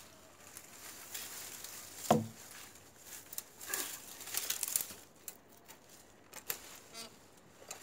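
Dry, dead brush stems and twigs rustling and crackling irregularly as they are pulled and pushed aside by hand, with one sharp knock about two seconds in.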